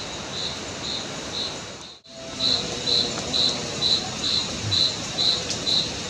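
A night insect chirping steadily, about two high chirps a second, with a momentary break about two seconds in.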